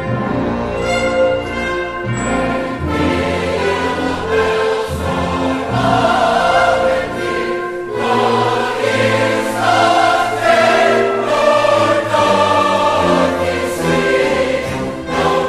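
Church chorus and orchestra performing a Christmas carol arrangement: after a few seconds of orchestra, the full choir sings loud and accented, "Then pealed the bells more loud and deep: God is not dead, nor doth He sleep," over full orchestral chords.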